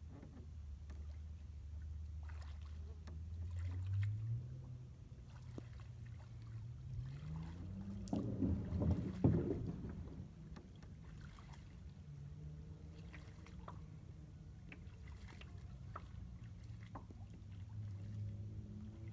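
A boat's motor running slowly at low revs, its pitch stepping up about four seconds in and again around eight seconds before settling lower. A louder rush of noise comes around eight to nine seconds, with scattered light clicks.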